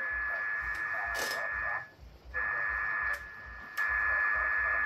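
Ten-Tec shortwave transceiver's receiver audio: steady hiss with a constant heterodyne whistle and a faint, barely readable sideband voice under it. A few sharp clicks break in, and the audio cuts out for about half a second around two seconds in, then drops lower for a moment just after three seconds.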